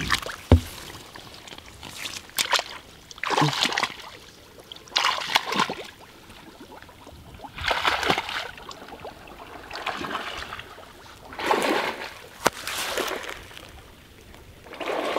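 Water splashing and sloshing in irregular bursts every second or two as a person wades through a shallow lily pond, with a sharp knock about half a second in and another near the end.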